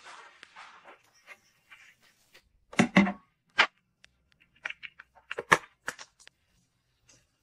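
Close-up handling sounds of unboxed items: light crinkling of plastic packaging, then a series of sharp clicks and taps as a phone case and a folded umbrella in its fabric sleeve are handled. The loudest are two knocks about three seconds in.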